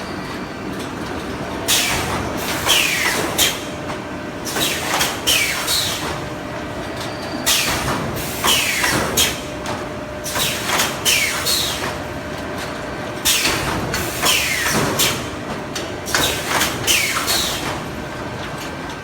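Wire-mesh welding machine of a 3D sandwich-panel production line working in repeated cycles: a steady machine hum broken by clusters of sharp strokes and short falling squeals about every three seconds.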